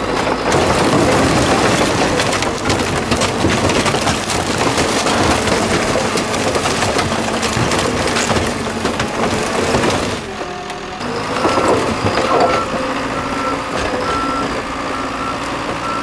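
John Deere 650K crawler dozer's diesel engine running as its blade shoves a pickup truck into a pile of scrap wood and sheet metal, with crunching and crashing for about ten seconds. Then the dozer's reversing alarm beeps about once a second over the engine.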